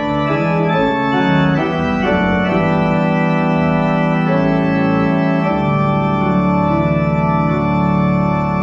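Church organ playing slow, sustained chords that change every second or two, with a deep bass note coming in about halfway through.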